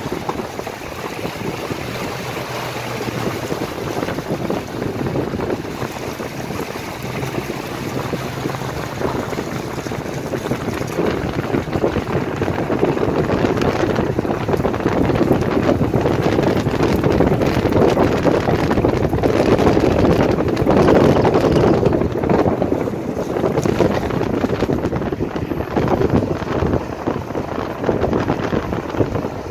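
Coal train's hopper cars rolling past with a steady rumble of wheels on the rails, mixed with wind on the microphone. The rumble grows louder through the middle as a Union Pacific diesel locomotive draws near, then eases slightly toward the end.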